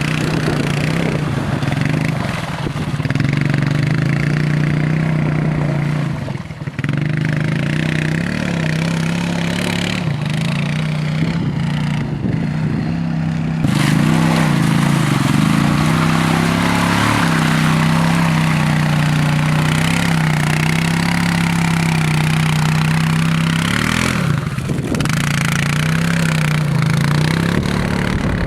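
ATV engine running at a steady, high throttle as the quad is ridden, with brief dips and wobbles in revs every few seconds.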